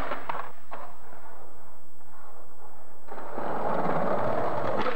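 Skateboard clattering on concrete after a bailed trick, a few sharp knocks in the first second. From about three seconds in, skateboard wheels roll steadily over concrete as the skater rides toward the stairs.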